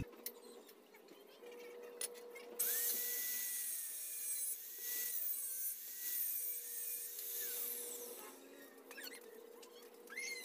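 A small power tool runs faintly for about five seconds, a high hiss with a wavering whine, between a few light clicks and taps of steel tube and angle bar being handled.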